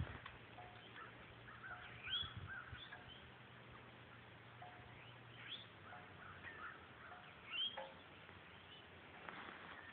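Faint bird calls: scattered short chirps that sweep upward in pitch, mixed with brief repeated lower notes, over quiet rural background.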